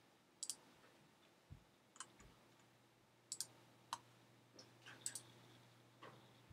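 Computer mouse clicks: a dozen or so short, sharp clicks at irregular intervals, some in quick pairs, over a faint steady hum.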